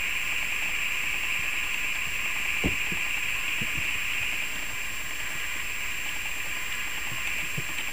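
Steady background hiss with no distinct event; only a faint, brief low sound about two and a half seconds in.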